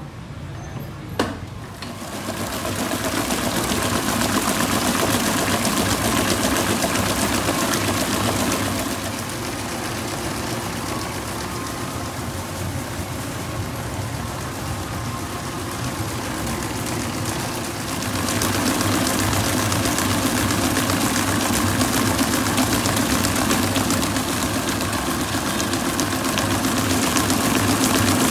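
Large electric stand mixer running steadily, its beater churning cake batter in a steel bowl. There is a sharp click just after the start, and the running gets louder about two seconds in, eases off from around nine seconds and rises again around eighteen seconds.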